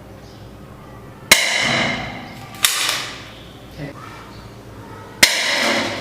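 Toy Uzi gun firing three single shots, each a sharp snap with a brief noise trailing after it, the shots a second or more apart.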